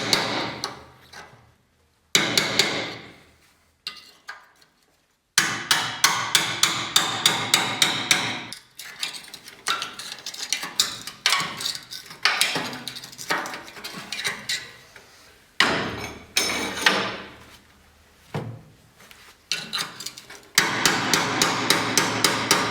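Small hammer striking a chisel, metal on metal, against a rust-seized muffler to break it loose. Quick runs of blows, about four to five a second, come between short pauses.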